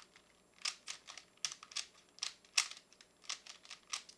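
Plastic Rubik's cube being twisted by hand: irregular quick clicks and clacks of its layers turning, several a second.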